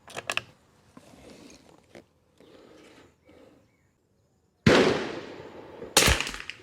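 A .22 LR bolt-action target rifle (Kimber 82G) firing: a sudden sharp shot with a decaying ring, then another sharp report a little over a second later.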